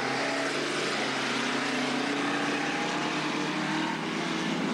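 Speedway race car engines heard at a distance as they lap a dirt track, a steady engine drone over a constant hiss.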